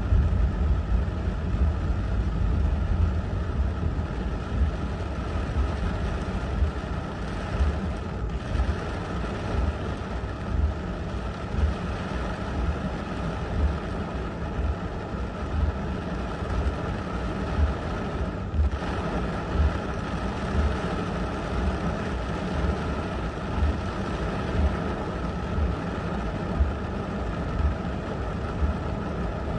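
Heavy rain pelting a car's roof and windshield in a severe thunderstorm, heard from inside the car, with strong gusting wind and a constant low rumble.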